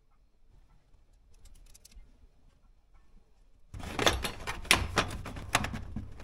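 Faint light ticking, then from about four seconds in an irregular run of sharp clicks and knocks, a few a second: hand tools and small metal parts being handled during work on a steering-wheel hub in a car.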